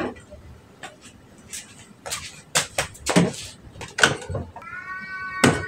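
Household clatter: a series of sharp knocks and clinks of objects being handled. Near the end comes a drawn-out, high-pitched tone.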